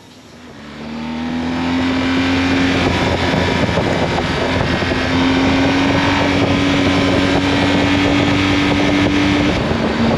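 BMW R1250 GS Adventure's boxer-twin engine getting under way, growing louder over the first two seconds, then running steadily with wind and road noise. Its pitch climbs slowly and drops near the end.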